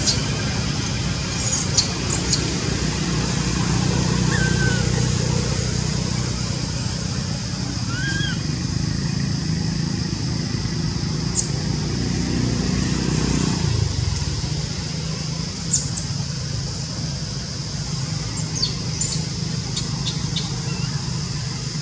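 Steady outdoor ambience: a low rumble under a steady high-pitched drone, with a few short high chirps, two of them about four and eight seconds in. The low rumble eases off about two-thirds of the way through.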